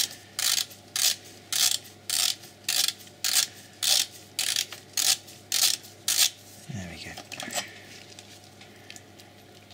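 Hand ratchet wrench with a socket turning a bolt under the engine: a quick run of pawl clicks on each back-swing of the handle, about every half second, stopping about six seconds in.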